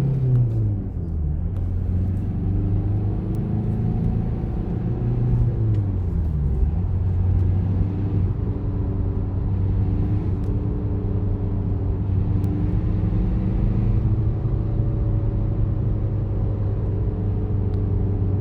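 A car engine running at idle with a steady low hum and overlying mechanical noise, its pitch dipping briefly twice, near the start and about five to six seconds in. The noise is that of a worn clutch release bearing, which has largely disintegrated and is heard when the clutch is disengaged.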